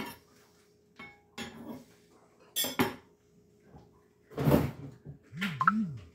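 Dishes and cutlery clinking and knocking at a kitchen sink and dish rack, in a few separate clatters. Near the end comes a short low sound that rises and falls twice.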